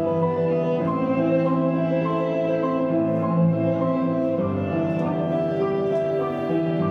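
Slow instrumental music: long held notes that change pitch every second or so.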